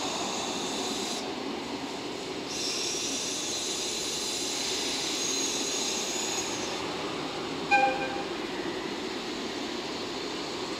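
Electric freight locomotives standing in the depot yard: a steady hum with air hissing on and off, and a short, sharp toot about three-quarters of the way through.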